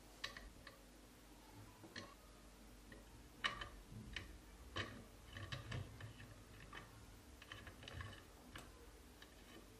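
Faint, irregular clicks and light taps of hands handling equipment on a workbench, about a dozen in all.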